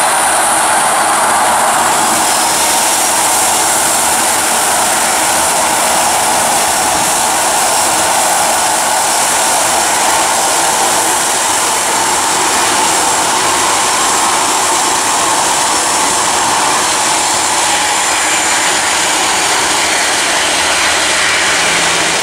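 Airbus A330 freighter's jet engines during touchdown and rollout on the runway: a loud, steady jet noise, with a high whine that fades in the first couple of seconds.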